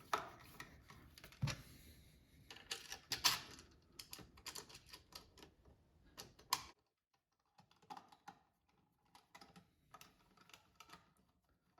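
Faint, irregular clicks and taps of a plastic socket faceplate and its cables being handled and eased into the wall back box. The loudest clicks come about three seconds in and again around six and a half seconds.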